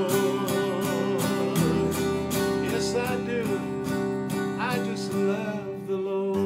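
Acoustic guitar strummed steadily through the instrumental close of a song, with a wavering melody line held over the chords.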